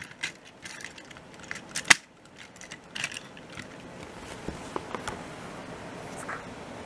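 Plastic clicks and knocks of Plarail toy train cars being handled and coupled together, the loudest a sharp click about two seconds in. After that only a faint steady hiss.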